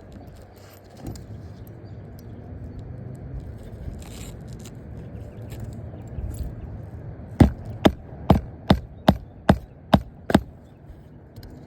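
About eight quick, evenly spaced hammer blows, roughly two a second, starting about seven seconds in, over low steady background rumble. The hammering is typical of nailing a shingle back down during a roof repair test.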